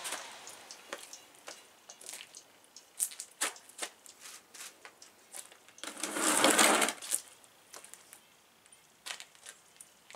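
Handling noises: scattered light clicks and taps, with a rustling scrape of about a second some six seconds in, as safety gear is handled. The chainsaw is not running.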